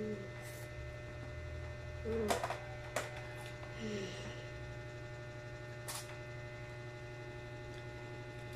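Steady electrical hum under quiet eating, with a few sharp clicks and two short falling vocal sounds from a child chewing.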